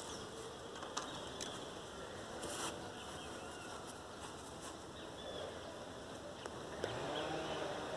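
Quiet outdoor ambience with a few faint clicks and faint, short bird chirps.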